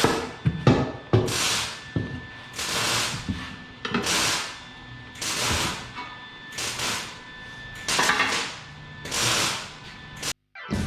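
Compressed air hissing in short repeated bursts, about eight of them, while new dirt late model racing tires are mounted, with a few sharp knocks near the start. The sound cuts off just before the end.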